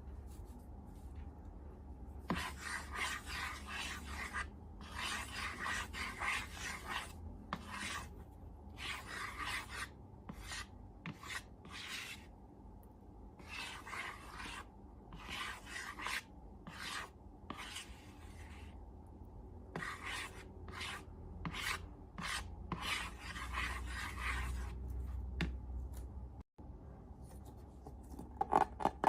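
Dry, rasping rubbing or scraping strokes, in bursts of one to two seconds with short pauses between them.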